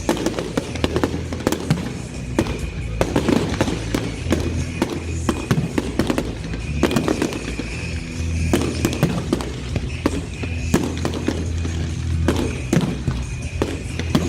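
Fireworks display finale: aerial shells banging and crackling in quick succession, with music playing alongside.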